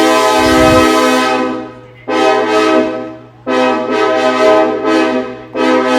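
Synthesized train horn imitating a Nathan Airchime K6LA, sounding its chord in a series of blasts: a long blast that fades out about two seconds in, a shorter blast, then a blast with several quick stuttered re-attacks, and another blast starting near the end.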